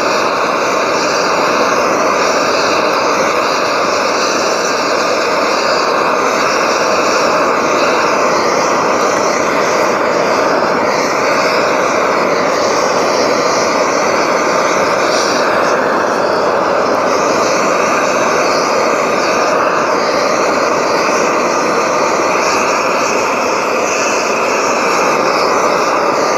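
Propane burner of a homemade paint-can forge running steadily: a loud, even rushing noise with a faint wavering tone in it.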